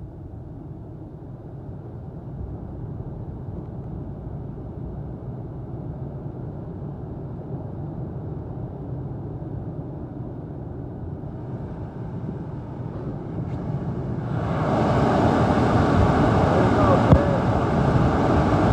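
Storm wind blowing on the microphone as a low rumble, growing steadily stronger, then about fourteen seconds in it jumps to a much louder, fuller rush. One sharp knock comes near the end.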